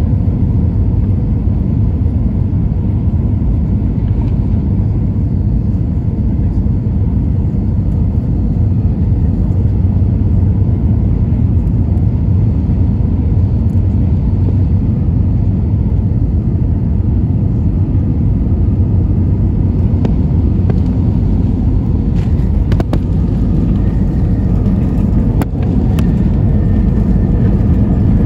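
Steady low rumble inside the cabin of an Airbus A321 airliner: engine and airframe noise. A few faint clicks come late on, and a faint whine joins in near the end.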